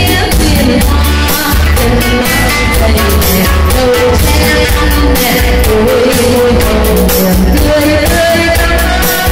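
A woman singing into a microphone over a loud backing track with a steady bass beat, amplified through PA loudspeakers.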